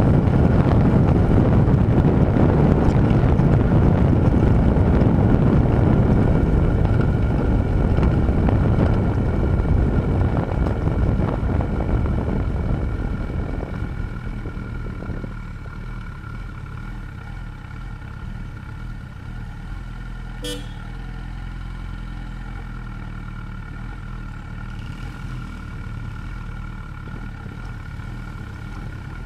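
Wind rush over the microphone and the Honda CB1000R's inline-four engine running at road speed. About halfway through it dies down as the bike slows, leaving a lower, steady engine hum. A single brief sharp sound comes about two-thirds of the way through.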